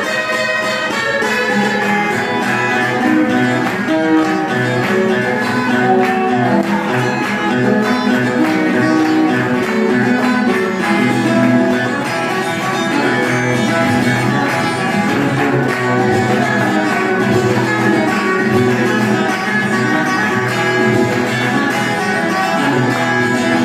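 Viola caipira, the Brazilian ten-string guitar, playing a hymn melody with held notes and occasional sliding pitches over a steady string accompaniment.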